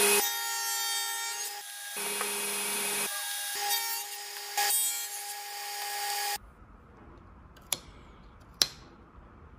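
Table saw running and cutting through a hardwood table leg held upright in a tenoning jig, a steady whine with a hiss of cutting. It cuts off abruptly about six seconds in, followed by two sharp knocks.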